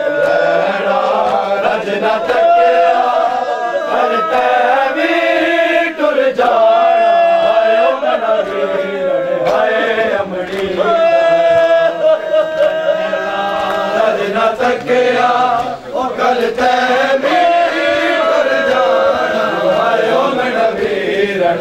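Men's voices chanting a noha, a Shia mourning lament, sung in long held lines by a group.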